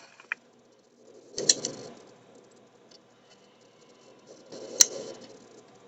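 Police radio between transmissions: short bursts of static with clicks, one about a second and a half in and another near five seconds in, as the channel keys up and drops.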